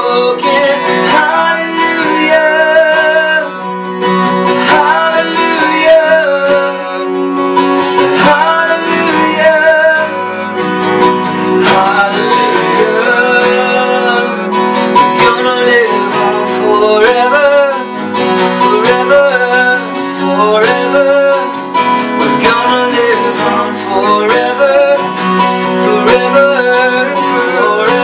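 Two acoustic guitars strummed together with a man singing the melody: a live unplugged song.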